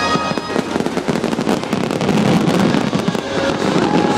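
Fireworks barrage: many shell bursts and crackles in quick succession, with the show's music faintly underneath.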